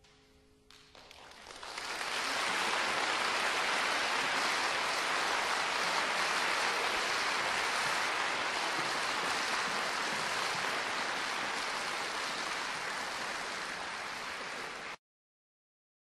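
The last piano notes die away and audience applause swells in over about two seconds, holds steady, then cuts off suddenly near the end.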